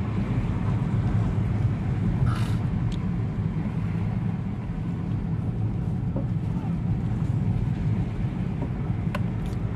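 Steady low rumble of a vehicle on the move, with a faint click near the end.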